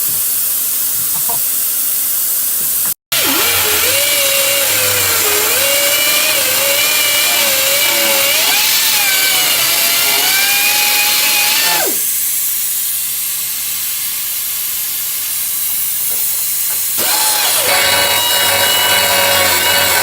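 Pneumatic air cutter cutting through a steel sway bar end link: a loud hissing, whining run whose pitch wavers up and down as the tool loads in the cut. The sound cuts out for an instant about three seconds in, eases off to a duller hiss around twelve seconds, and picks back up near seventeen seconds.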